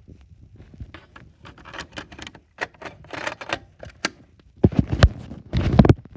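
Plastic clicking, scraping and knocking from a smoke detector being handled and fitted, with a few heavier thumps in the last second and a half.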